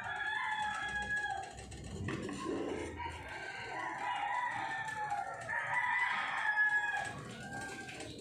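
Several drawn-out, pitched animal calls, one after another.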